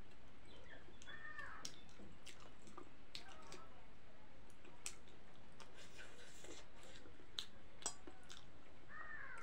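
Eating sounds: a person chewing instant noodles, with scattered sharp clicks of a fork and spoon against a plate.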